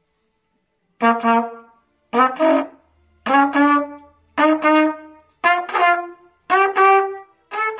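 Trumpet playing a syncopated exercise up the C scale: about one step per second, each step two quick tongued notes, the pitch rising step by step.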